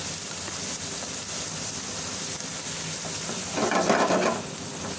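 Bitter gourd masala sizzling in oil in a frying pan while a spatula stirs it, with a louder burst of stirring about three and a half seconds in. The oil has separated from the masala, the sign that it is fully fried.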